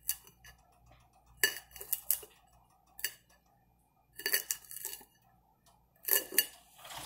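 A kitchen knife clinking against a pan as broccoli leaves are cut up over it: about half a dozen separate, irregularly spaced clinks, each ringing briefly.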